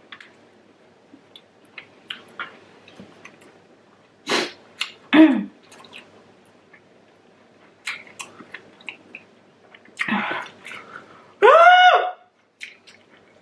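Mouth sounds of someone suffering through very spicy food: faint chewing and lip smacks, two sharp hissing breaths, and short pained whimpers. One whimper falls in pitch about five seconds in; a louder one rises and falls near the end.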